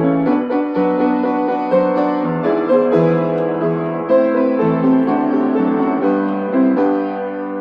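Background music: a slow keyboard melody of held notes, growing quieter near the end.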